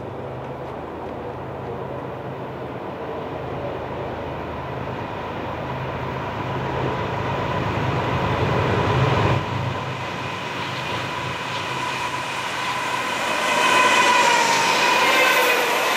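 CN double-stack intermodal train approaching and passing close, led by a GE ES44AC Gevo diesel locomotive and EMD SD70M-2 units. The diesel engines get steadily louder as the train nears, with a sudden shift in the sound about nine seconds in. Wavering high whining tones rise near the end as the locomotives go by.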